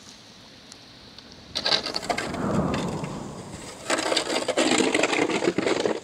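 Blizzard wind gusting hard across the microphone, with the scrape and crunch of a plastic snow shovel pushing snow. The noise surges loudly about a second and a half in, eases, and surges again about four seconds in, then cuts off abruptly.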